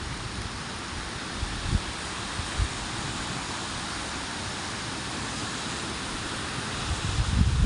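Steady hiss of heavy rain in a thunderstorm, with gusts of wind buffeting the microphone, stronger near the start and again near the end.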